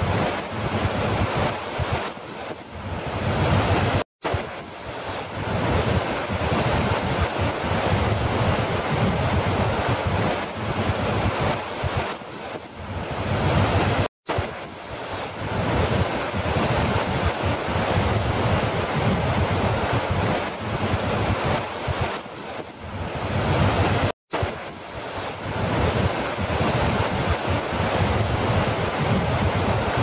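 A large waterfall pouring over a rock ledge: a steady, heavy rush of falling and churning water, with wind buffeting the microphone. The sound cuts out for an instant three times, about ten seconds apart.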